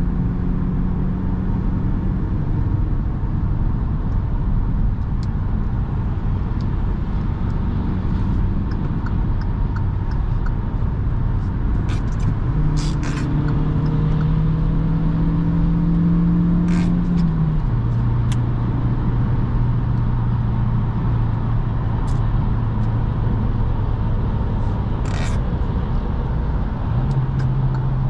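Kia Rio's 1.2-litre four-cylinder petrol engine and tyre noise heard from inside the cabin while driving. The engine note climbs for a few seconds midway, then drops with an upshift of the manual gearbox, and rises again near the end. A few sharp clicks are heard along the way.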